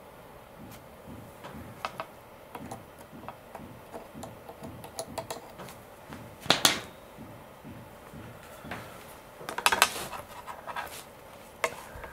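Small metal hand tools (long forceps and a helping-hands alligator clip) clicking and scraping as fine wires are fed into the clip for soldering. Light scattered ticks run throughout, with two louder clusters of clinks about halfway through and again a few seconds later.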